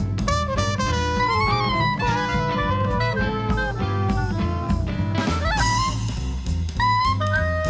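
Traditional New Orleans jazz band playing an instrumental passage, with melody lines sliding in pitch over a steady bass beat.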